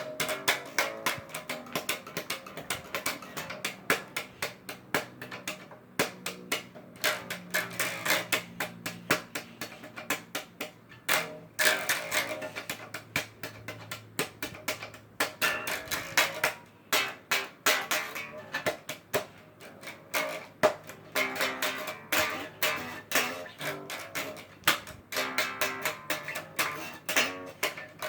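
Bass guitar being plucked, a steady run of single notes several a second with low notes ringing under them.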